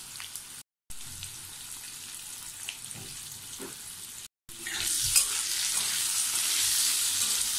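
Boiled potato cubes frying in mustard oil in a metal kadai. A faint sizzle is broken twice by brief silences, then about four and a half seconds in becomes a louder, steady sizzle as a metal spatula stirs them.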